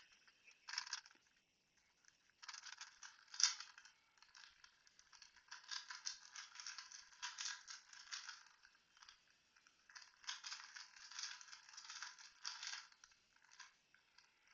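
A plastic 2x2 Rubik's cube being twisted by hand: faint bursts of clicking and rattling as the layers turn, in irregular runs with short pauses.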